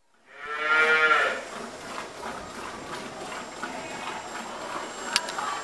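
A cow moos once, a short call about half a second in. It is followed by quieter sounds of hand-milking into a metal pail, with one sharp knock near the end.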